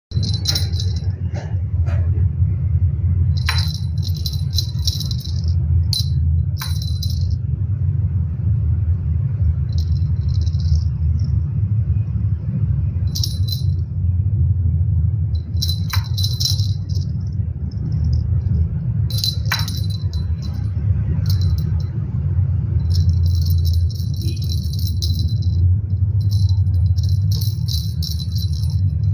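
Metallic jingling in irregular short bursts, like a small bell or keys shaken, over a steady low hum.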